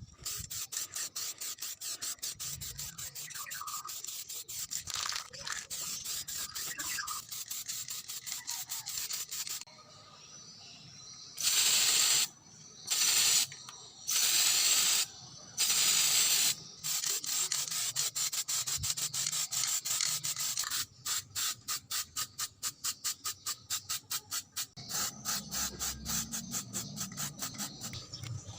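Rapid back-and-forth hand-sanding strokes, several a second, interrupted about halfway by four short, loud, hissing bursts, after which the stroking resumes faster.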